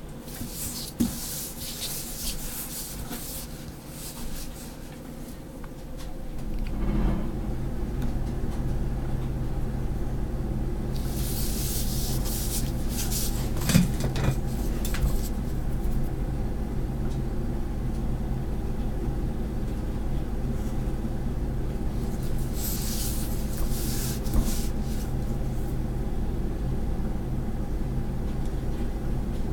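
Pen tip scratching across paper in several long strokes, lines drawn along a ruler. A steady low hum with several pitches starts about seven seconds in and continues under them.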